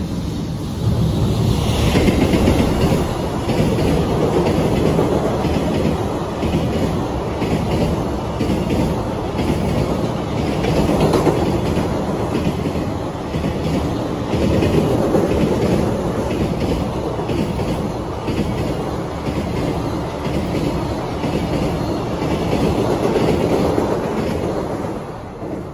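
Freight train of container wagons passing on a steel girder bridge: a loud, steady rumble with wheels clattering over rail joints. It builds about a second in and starts to fall away at the very end as the last wagons pass.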